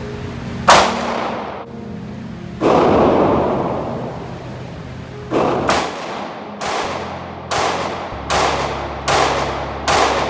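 A handgun fired about nine times in an indoor shooting range, each sharp shot echoing off the walls. Two shots come a couple of seconds apart, then a string of seven about one a second.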